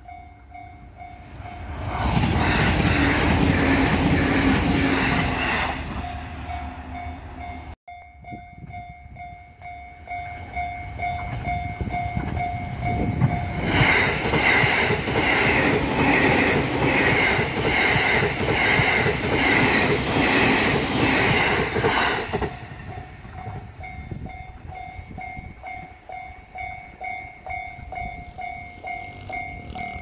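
Japanese railway level-crossing warning bell ringing with a fast, steady, repeating ding. A train runs loudly by for a few seconds near the start. After a brief break, an electric commuter train passes the crossing for about eight seconds with rhythmic wheel clatter over the rail joints. Then the bell is heard on its own again.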